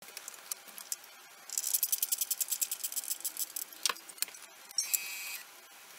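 Spring motor of a Terpophon portable gramophone being wound by hand crank: fast, even ratchet clicking, about ten clicks a second for about two seconds. It is followed by a single sharper click and a short metallic scrape near the end.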